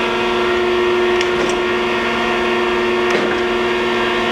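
A 1981 Thompson 2F hydraulic surface grinder running, a steady mechanical hum holding a strong tone. A sharp click sounds about every two seconds as the hydraulic table reverses and the crossfeed steps.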